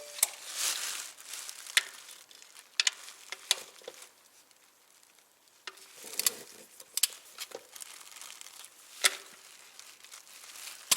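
Irregular crinkling and rustling with scattered sharp clicks, from tools and a plastic oil drain container being handled under the car before the sump plug is pulled.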